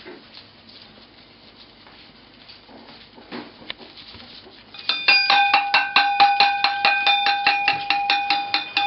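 Stainless steel puppy feeding bowl clattering and ringing, knocked rapidly over and over, about six or seven strikes a second, as puppies eat from it. It starts about five seconds in, and each knock leaves a bell-like metallic ring.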